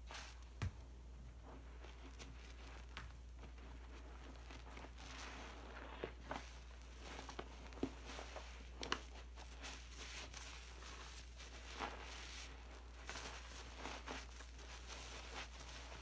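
Soapy sponges squeezed by hand in a bowl of thick detergent foam: soft wet squelches and crackling foam, with small irregular pops and drips. The sounds are sparse at first and get busier from about five seconds in, over a faint steady low hum.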